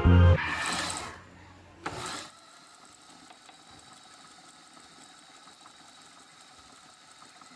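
Background music stops about half a second in and dies away. After a short noisy burst about two seconds in, a faint steady machine hum with a thin high whine continues.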